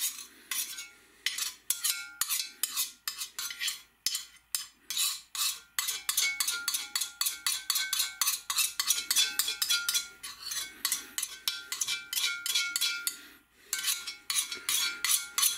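Metal spoon scraping and clinking against the inside of a hot cast-iron roaster, several strokes a second, with the pot ringing faintly after the clinks, as a spoonful of oil is spread over it to season the pan.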